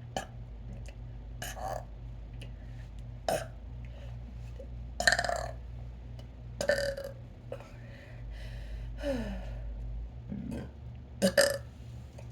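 A person burping on purpose, a string of short separate burps a second or two apart, the loudest about five seconds in and two in quick succession near the end. A steady low hum sits underneath.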